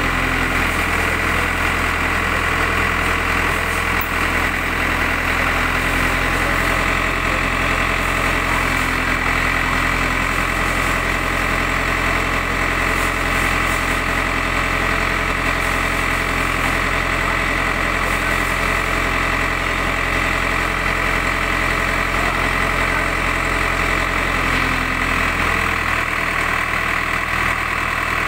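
JCB 3D backhoe loader's diesel engine running steadily at idle, with a steady high-pitched whine over it; the engine note shifts slightly near the end.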